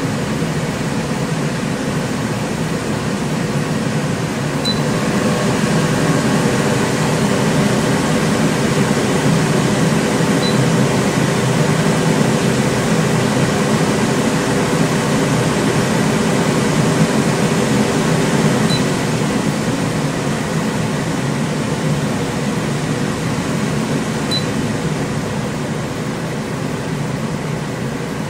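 Silverline Comet island cooker hood's extractor fan running: a steady rush of air with a low hum. It grows a little louder about five seconds in and eases back after about nineteen seconds.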